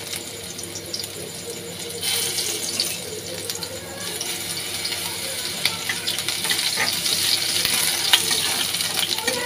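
Chopped garlic sizzling and crackling in hot oil in a wok, a steady hiss that gets louder about two seconds in. From a few seconds in, a spatula stirs and scrapes through it.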